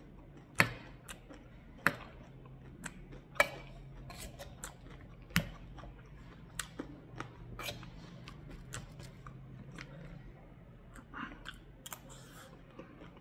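Steel spoon clicking and scraping against a steel plate while stirring and scooping crunchy puffed-rice chatpat, with crisp crunching of the dry snack. The loudest clinks are about four sharp ones in the first six seconds, with lighter ticks and crunches after.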